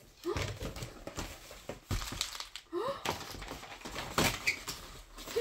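Cardboard advent calendar boxes and packaging being handled: scattered knocks, thunks and rustling.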